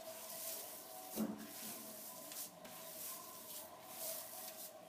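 Hands kneading and pressing sajja (pearl millet) dough in a steel plate, giving a run of soft, uneven rubbing strokes, with one louder thump about a second in.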